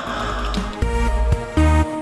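Electronic music: short synth notes changing pitch over a deep bass.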